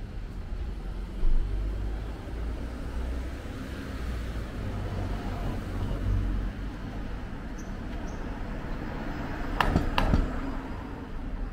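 Street ambience of road traffic, with a steady low rumble of passing cars. Two sharp clicks come about half a second apart near the end.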